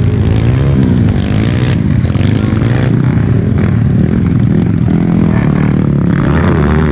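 Several motard racing motorcycle engines running at once, each rising and falling in pitch as the riders rev up and back off.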